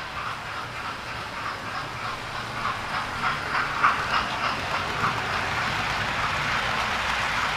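Model trains running past on the layout's track: a run of irregular clicks as wheels pass over rail joints through the middle, then a steadier, slightly louder rolling whir as coaches pass close on both tracks.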